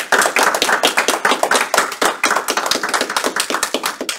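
A small group applauding: dense, rapid hand claps in a small room, thinning out near the end.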